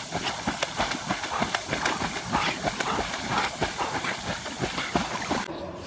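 Rapid, irregular clicking and tapping, like a dog's claws clattering on a hard tabletop, stopping abruptly near the end.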